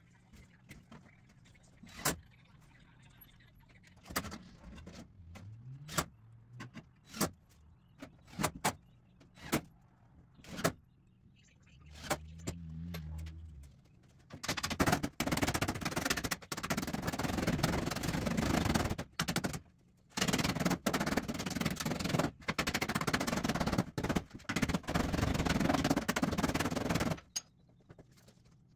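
Scattered sharp knocks from hand work on a wooden chicken-tractor frame. About halfway through, a loud rushing noise starts; it breaks off once for about a second and stops shortly before the end.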